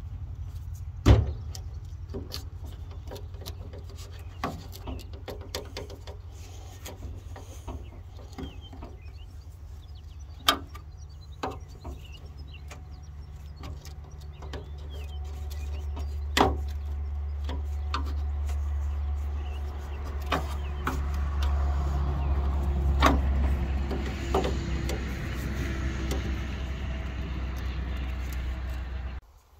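Scattered clicks and knocks of a screwdriver working a radiator hose clamp, the sharpest about a second in, over a steady low rumble that grows louder about halfway through and cuts off just before the end.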